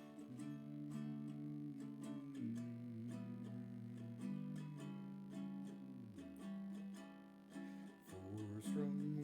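Ukulele strummed in a steady rhythm, playing the chord intro of a folk song, with the chords changing every second or two.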